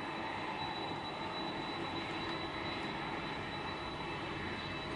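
Boeing 767's two jet engines running at taxi thrust as the airliner rolls along the taxiway: a steady rush of engine noise with a thin, high, unchanging whine.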